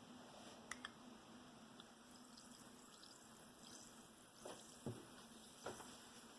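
Near silence: faint room tone with a few soft, short clicks and knocks, the loudest a little before the five-second mark and near the end.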